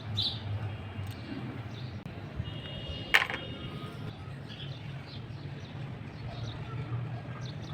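One sharp tap about three seconds in, ringing briefly, over a low steady hum with faint scattered chirps.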